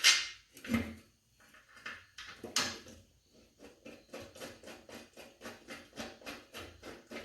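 Hand work on a lawn mower deck spindle: a sharp metal knock as the spindle is set in place, a few more knocks, then a steady run of light ticks, about three a second, as its bolt is worked in.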